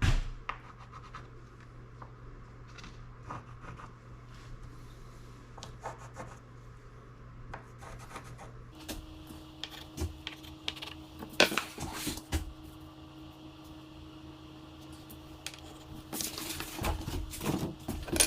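Scratching and rubbing handling noises on a laminate countertop, with scattered light clicks and a few sharper knocks later on.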